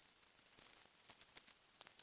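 Near silence with a few faint, light clicks in the second second.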